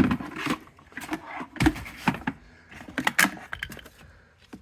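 Plastic Chicco KeyFit 35 car seat base being handled and shifted on the back seat, a series of irregular clacks and rattles.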